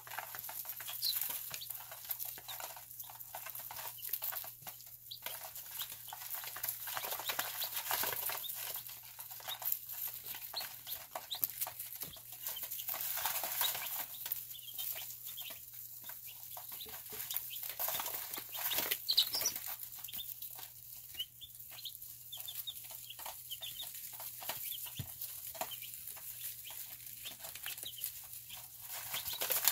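A brood of young chicks peeping: many short, high chirps overlapping constantly, over a faint steady low hum.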